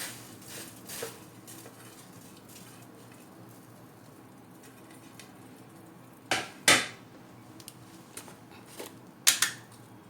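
Metal kitchen utensils clinking and knocking against a pot and small containers: a few light clicks, then two louder sharp knocks about six and nine seconds in, over a faint steady hum.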